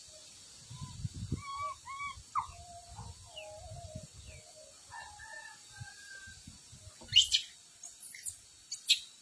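Farmyard birds calling: chickens clucking with other birds, and a quick run of sharp, high chirps about seven seconds in.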